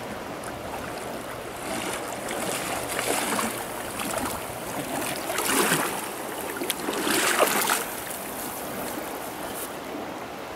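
Steady rush of shallow river water, broken by three louder bursts of splashing around the middle as a small hooked trout is drawn in and grabbed by hand in the shallows.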